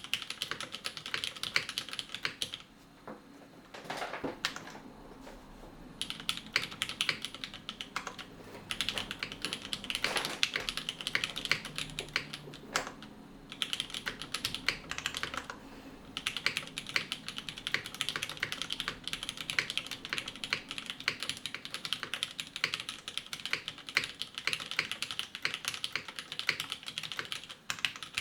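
Mechanical keyboard with Cherry MX Black linear switches in a CNC-machined aluminium case, typed on fast and continuously: dense, rapid key clacks with a few short pauses.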